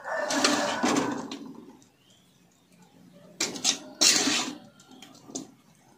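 Metal spatula scraping against a metal wok as cooked stir-fry is scooped out: one long scrape at the start, then two short scrapes around three and a half and four seconds in.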